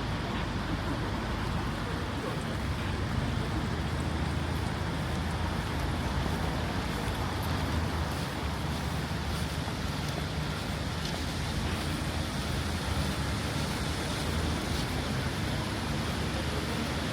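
Steady rain hiss on a city street with a low rumble of traffic underneath and a few faint drip ticks.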